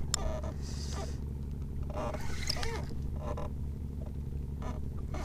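Boat engine running with a steady low hum, with a few light clicks over it.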